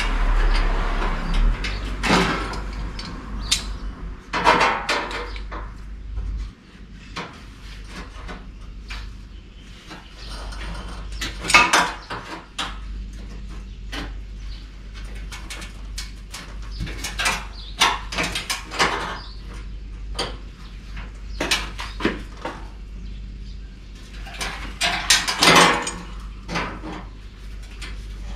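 Steel sheet-metal panel being bent by hand with a gripping hand tool to fold up its edge lips: scattered metallic clicks and clanks, with several louder scraping, rattling passages as the panel shifts on the bench.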